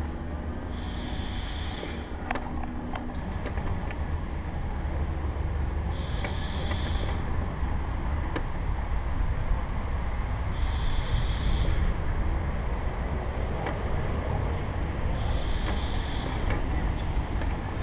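Steady low rumble of travel along a tarmac path. A short, high, buzzing chirp repeats about every four and a half seconds, four times in all.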